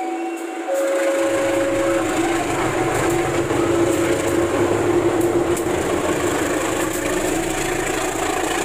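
KAI CC 201 diesel-electric locomotive passing close by under power, its engine sound coming in strongly about a second in, followed by passenger coaches rolling past on the rails.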